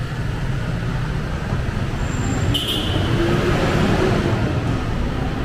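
Steady low rumble of city background noise, typical of traffic heard from a pedestrian area, with one short high chirp about two and a half seconds in.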